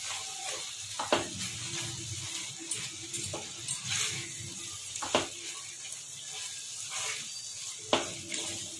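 Grated bottle-gourd halwa sizzling in ghee in a steel pan as it is roasted and stirred with a silicone spatula. A steady hiss is broken by a few sharp scrapes of the spatula on the pan, about a second in, around the middle and near the end.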